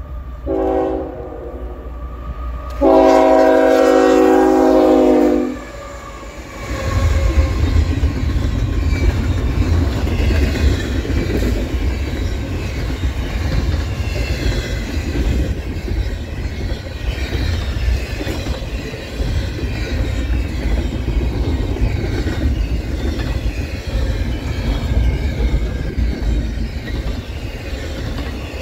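CSX freight locomotive horn sounding one short blast and then one long blast. A few seconds later the lead GE ES44AC and ET44AC diesel locomotives pass, followed by a double-stack container train rolling by with a steady low rumble and wheel clatter.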